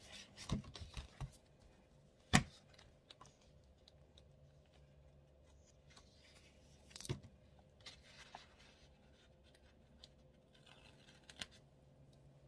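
Paper sticker sheets being handled: a few brief rustles and sharp paper snaps, a cluster in the first second or so, the sharpest just after two seconds, and another about seven seconds in.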